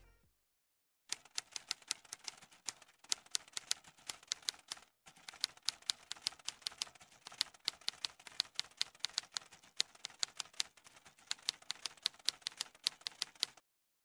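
Typewriter key-strike sound effect: a quick, uneven run of sharp clicks, several a second, with a short break around the middle. It stops just before the end.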